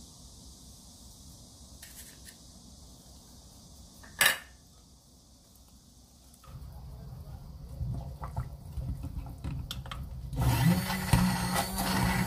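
Faint whisking of a thick sauce in a glass bowl, with one sharp clink about four seconds in. A louder low rumble sets in partway through. From about ten seconds an immersion blender runs in a pot of boiling fish soup, a steady motor hum with churning, puréeing the stock.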